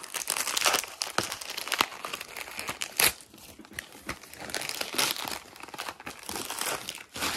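Gift packaging being opened by hand: a clear plastic wrapper and wrapping paper crinkling and tearing in irregular crackles, with a few louder snaps.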